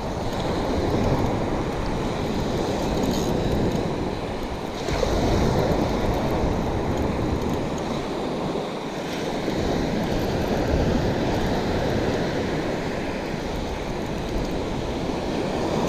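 Ocean surf washing onto the beach in slow swells, with wind buffeting the microphone.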